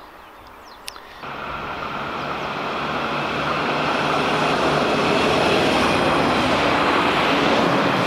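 Kurhessenbahn two-car diesel multiple unit (DB Class 642 Desiro) approaching and passing close by a level crossing. Its engine and running noise set in about a second in, grow louder as it nears, and hold steady as it goes past.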